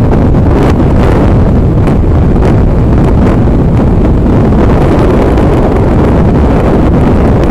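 Loud, steady wind noise buffeting the microphone on a Yamaha XT 350 riding at road speed. The motorcycle's single-cylinder four-stroke engine runs underneath.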